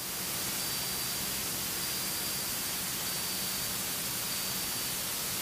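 Steady hiss of cockpit noise in a Beechcraft Baron in flight, with a faint low engine hum and a thin, steady high whine.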